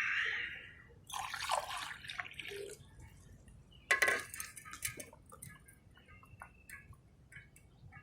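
Warm salted lemon water splashing in a glass as it is drunk down fast, the gulping stage of kunjal kriya before the water is vomited back up. The liquid and glass sounds come in short noisy spells, with one louder, sudden sound about four seconds in.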